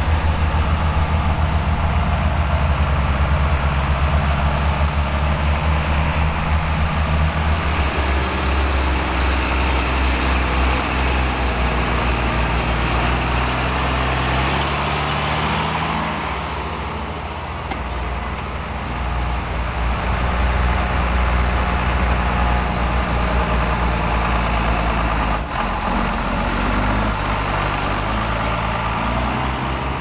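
Classic John Deere 55-series tractors' six-cylinder diesel engines working steadily under load while pulling ploughs, their engine notes shifting slightly as the tractors move past. The level dips briefly just past the middle, and there is one short click about 25 seconds in.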